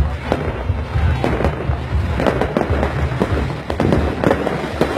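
Aerial fireworks bursting overhead: an irregular string of sharp bangs, about two a second.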